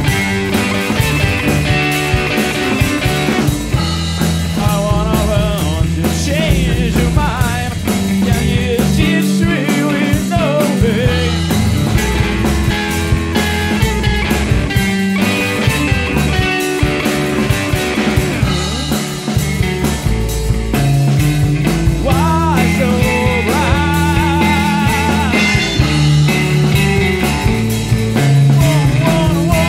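Rock music: a band track with bass and wavering melodic lines, laid over the footage.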